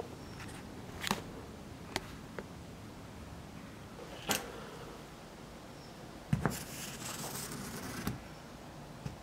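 A few light handling clicks and knocks, then about six seconds in a paint marker scratching across a car's window glass for a couple of seconds as a line is struck through.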